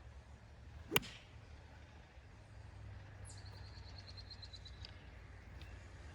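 One sharp strike about a second in, a wooden-shafted golf club hitting the ball. A few seconds later a bird sings a short high song: a quick falling note, then a fast trill of about ten notes.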